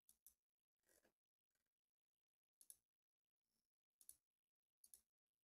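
Very faint clicks, each a quick double click, four times, with a softer, longer rustle-like noise about a second in.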